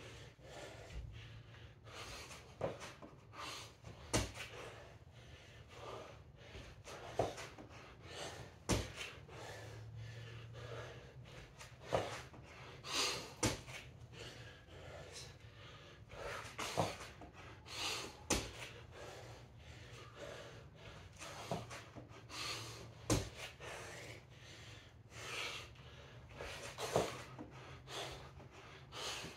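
A man breathing hard with forceful exhales every few seconds as he does kettlebell swings, with scattered sharp knocks and thuds.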